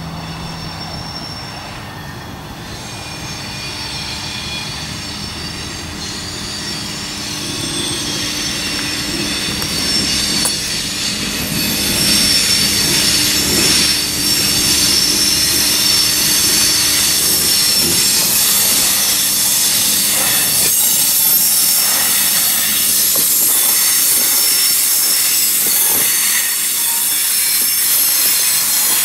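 Bluebird diesel railcar approaching and passing close by, getting louder over the first dozen seconds, with its engine note under high-pitched wheel squeal. In the second half its wheels click over the rail joints as it goes past.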